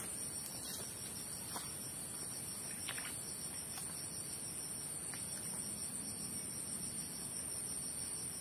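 Steady high-pitched insect drone, with a few faint, soft ticks and rustles scattered through it.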